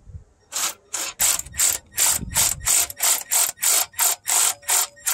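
Ratchet wrench worked in short, quick strokes, giving a burst of pawl clicks on each backswing, about three a second, starting about half a second in.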